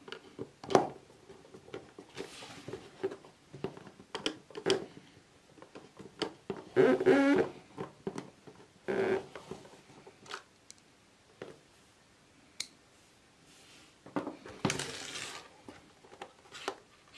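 Clicks, taps and knocks of hands working on a portable fan heater's plastic casing, fitting screws into its back with a screwdriver. Near the end there is a short scrape of about a second, as the heater is moved on the bench.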